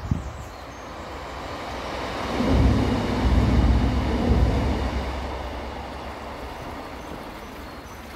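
A train passing over a railway bridge directly overhead, heard from underneath as a deep rumble that builds, is loudest around the middle, and then fades away.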